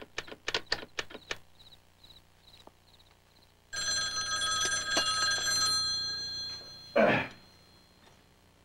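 Landline desk telephone's bell ringing, one long fluttering ring of about three seconds that fades out. Before it come a few light taps, and after it a single short loud clunk.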